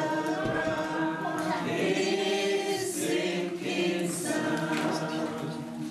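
A group of voices singing a gospel worship song together, holding long notes.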